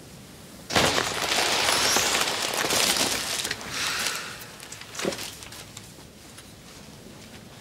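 Foil (mylar) heart balloon crushed and crumpled by hand: a loud crinkling that starts suddenly about a second in and runs for about three seconds, followed by two shorter crackles.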